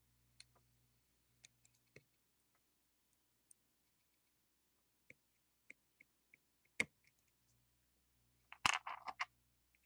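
Light scattered clicks and taps of a soldering iron's desoldering tip and hands against a circuit board clamped in a metal vise, with one louder click about seven seconds in and a short burst of scraping clicks near the end. A faint steady low hum runs underneath.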